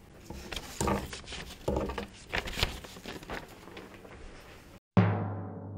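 Papers rustling and being gathered up at a podium microphone, with irregular light knocks and rustles. About five seconds in, a single loud drum hit rings out and fades, the start of a music sting.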